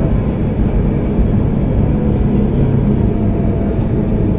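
Tram running along the line, heard from inside the passenger cabin: a steady rumble of wheels on rails with a faint, even motor hum.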